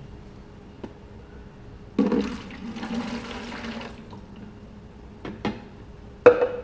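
Water poured from a plastic measuring cup into a large empty plastic jar, splashing for about two seconds, loudest as the pour begins. A few light clicks follow, then a sharp knock near the end.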